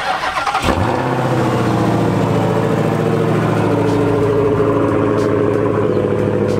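Dodge Challenger SRT Hellcat's supercharged 6.2-litre V8 coming in suddenly and settling into a steady idle.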